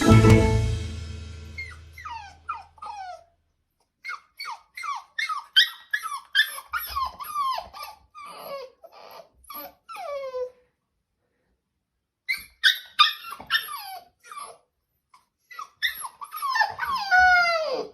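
A dog whining and yelping: many short high calls that slide down in pitch, coming in bursts with pauses, rising to a longer run of drawn-out falling whines near the end.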